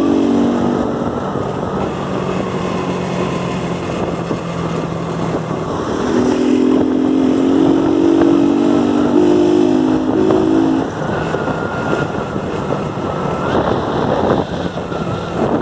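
Motorcycle with a de-baffled ("desmiolado") exhaust running while being ridden, its engine note strongest between about six and eleven seconds in.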